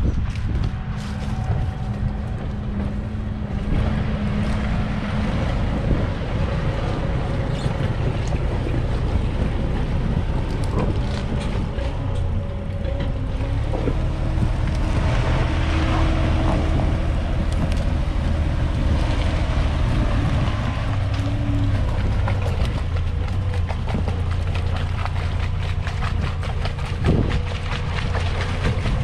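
Diesel engine of a SHERP amphibious vehicle running, its pitch stepping up and down as the vehicle drives down the bank and into the water.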